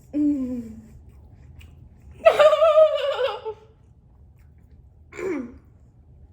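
A woman's voice making drawn-out, wavering hums of delight over her food, half laughing: a short falling one at the start, a longer, louder one about two seconds in, and another short falling one near the end.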